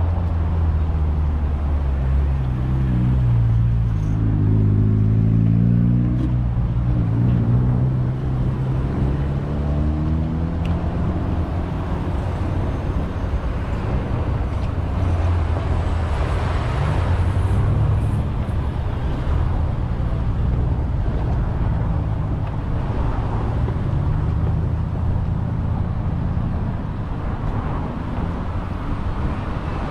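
Freight train passing close by. A diesel locomotive engine drones past in the first several seconds with its pitch sliding down, then the steady rumble of freight cars rolling on the rails.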